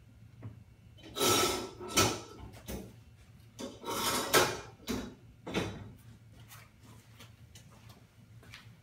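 Framed artwork panel of a hidden TV mount being handled and moved: a series of sliding, rubbing scrapes and knocks, most of them in the first two thirds and dying away about six seconds in.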